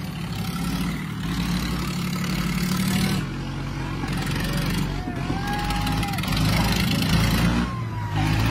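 Diesel tractor engine pulling hard under load in a tug-of-war, its rear tyre spinning and scrubbing on the paving, with shouts from onlookers over the top.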